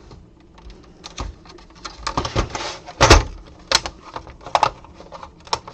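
Plastic locking clips of a PS4 console's housing being pried apart with a metal tool: scraping, then several sharp plastic clicks and snaps, the loudest about three seconds in.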